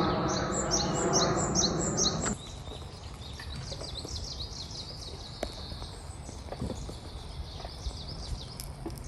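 Small birds chirping and trilling in quick repeated high notes. A louder steady noise under them cuts off suddenly about two seconds in.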